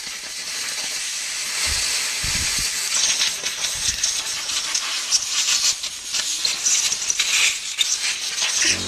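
Steady hissing thick with irregular crackles and pops while a Minarelli AM6 engine casing is heated to free its bearings, with two dull low thumps about two seconds in.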